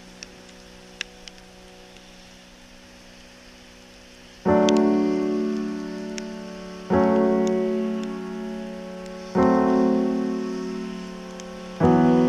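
Background piano music. A soft chord is held for the first few seconds. Then, starting about four and a half seconds in, piano chords are struck roughly every two and a half seconds, each ringing and fading away.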